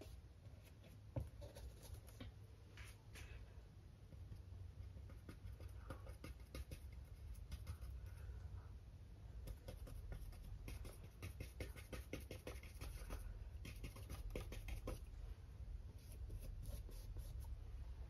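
Faint scratching and tapping of a paintbrush stroking and dabbing acrylic paint onto a canvas board: many small, irregular brush contacts, over a low steady hum.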